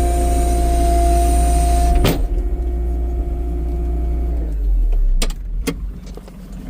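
Vehicle engine running with a steady whine over a low rumble. There is a sharp knock about two seconds in. The whine fades out past the middle, followed by two sharp clicks.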